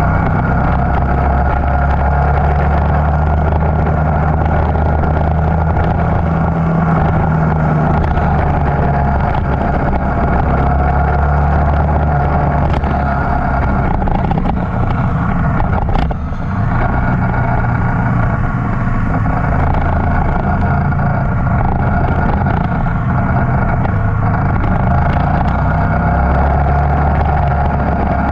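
Motorcycle engine running steadily under way, with a brief dip in the sound about halfway through.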